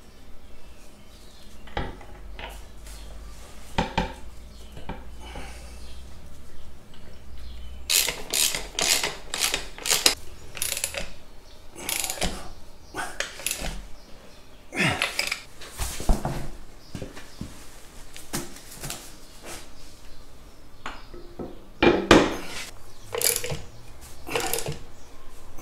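Hand socket ratchet clicking in several quick runs, with clinks of metal, as the bolts holding a tractor front wheel rim to its hub are tightened.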